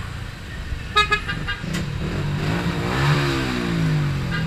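A few quick horn toots about a second in, then a motorcycle engine passing close by, its pitch rising and then falling as it goes past, over steady street traffic.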